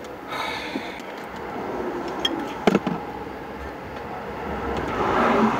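Highway traffic going by, with a single sharp knock about two and a half seconds in and a vehicle passing close, swelling louder near the end.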